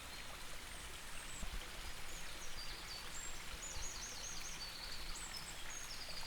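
Babbling brook flowing steadily and faintly, with small birds chirping in short, quick runs of high notes.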